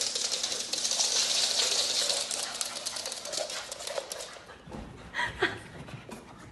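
A French bulldog's claws skittering fast on a hardwood floor as it runs frantically, a dense patter of clicks that fades after about four seconds. Two short, louder sounds follow about five seconds in.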